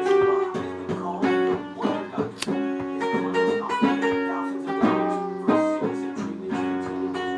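Acoustic guitar music, notes plucked and strummed in a continuous run.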